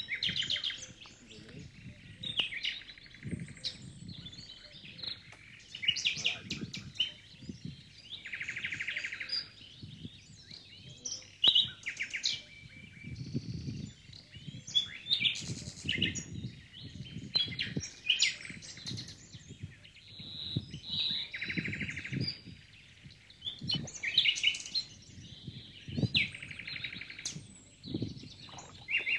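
Songbirds chirping and singing over and over, with short chirps and buzzy trills repeating, and low muffled rumbles now and then underneath.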